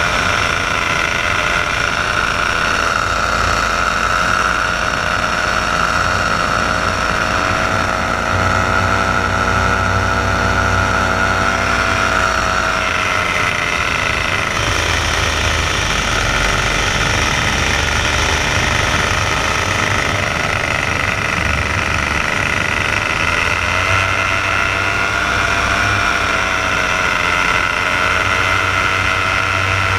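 Paramotor engine and propeller running steadily under power in flight, close to the microphone, the engine note drifting slightly up and down with throttle.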